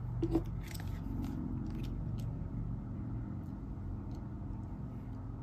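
Tarot cards being handled, with a few soft clicks and rustles, over a steady low hum.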